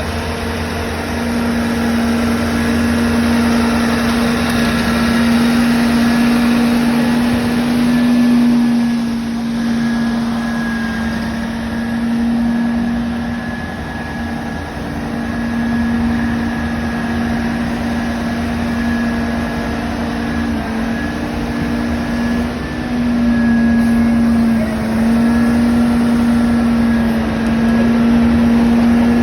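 Engine of a cutter soil mixing (CSM) rig running steadily during a trial cut into soil and cement, a loud, even hum whose pitch dips briefly a few times in the second half.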